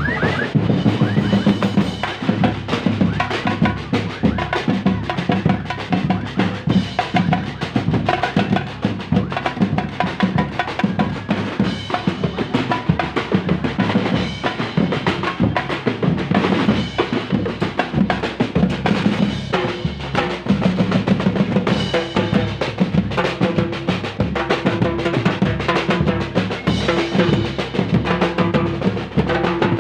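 Marching drumline playing a continuous parade cadence on snare drums, tenor drums, bass drums and cymbals.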